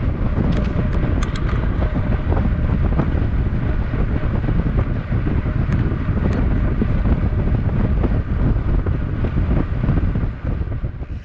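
Wind buffeting the microphone while riding, a steady low rumble with a few scattered clicks; it starts to fade near the end.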